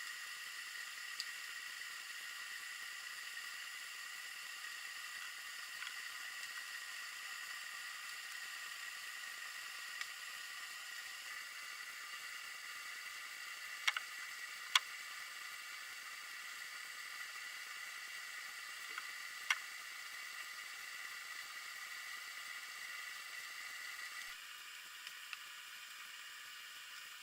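Steady hiss and a faint high whine from an underwater fishing camera's sealed recording, with a few sharp clicks about halfway through. The hiss drops a little near the end.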